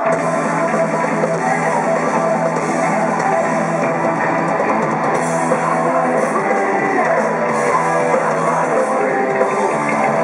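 A live heavy metal band playing loud, with electric guitars and a drum kit.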